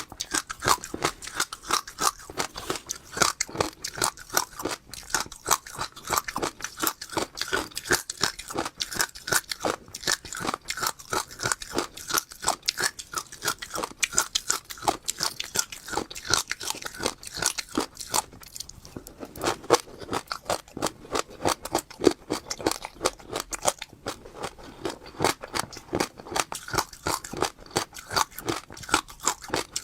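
Close-miked chewing of crunchy seeds: a quick, steady run of sharp crunches, several a second, with a short pause about two-thirds of the way through.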